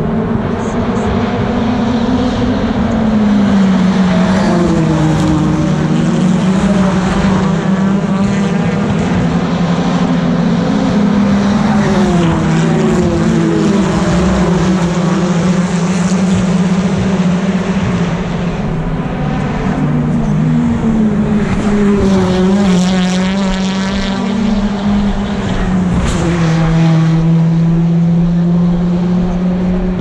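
BTCC touring cars with 2-litre turbocharged four-cylinder engines racing past trackside in a continuous stream. Several engine notes overlap, each rising as a car accelerates and dropping back at each gear change.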